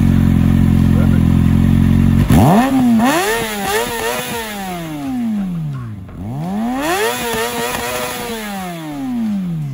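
2019 Kawasaki ZX-6R's inline-four engine through an M4 Street Slayer carbon slip-on exhaust, idling steadily for about two seconds, then revved twice. Each time the revs climb sharply, are blipped a couple of times near the top, and fall slowly back.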